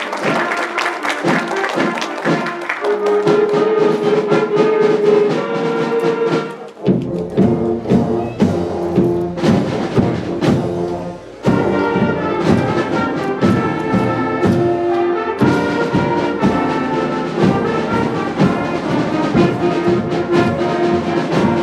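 Band music with brass and drums, changing to a new passage about 7 seconds in and again about 11 seconds in.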